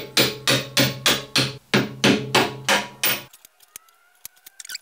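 Club hammer striking a steel suspension bolt, driving it through the rear control-arm eye into the hub carrier: a quick even run of ringing metal blows, about three or four a second, that stops about three seconds in. A few faint clicks follow.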